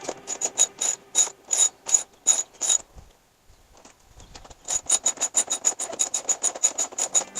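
A ratchet clicking in repeated strokes, about three clicks a second, then a pause of about two seconds in the middle, then faster, steady clicking.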